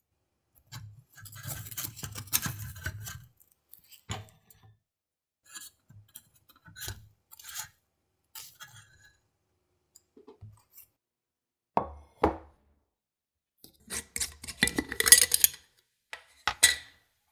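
Kitchen handling sounds: bamboo tongs scraping and tapping against a metal taiyaki mold as the fish-shaped cakes are lifted out. Near the end, a busier stretch of clinking and rattling as a glass jar of dried azuki beans is handled.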